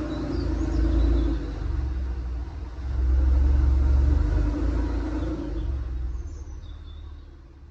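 Porsche 996 Carrera 4S's M96 flat-six engine running with a low rumble that swells twice and eases off near the end. Per the owner it now sounds well, without the ticking he put down to a sticky hydraulic lifter.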